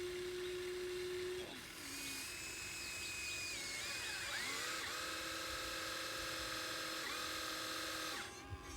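Small electric motors of a radio-controlled model excavator whining, the pitch jumping and sliding as the motors change speed. A lower whine stops about a second and a half in, a higher one runs a few seconds with pitch slides near the middle, then a steady whine cuts off about a second before the end.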